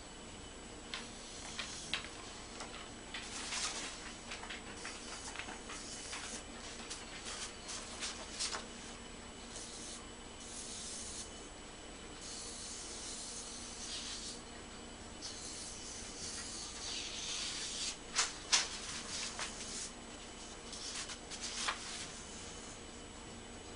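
Intermittent rubbing and scraping with scattered light clicks and taps, the sharpest a little past the middle.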